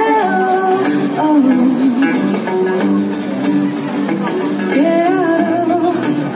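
Live band performing a song: a singer's voice carries the melody over strummed acoustic guitar and electric guitar, played through the stage sound system.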